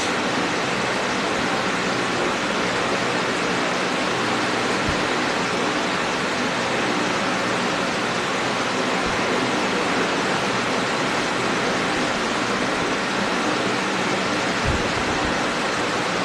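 A steady, even rushing hiss of background noise, unchanging in level, with a couple of faint low thumps.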